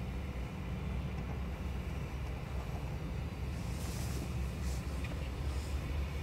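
CSX diesel-electric locomotive standing and idling, a steady low rumble, with a few short hisses in the second half.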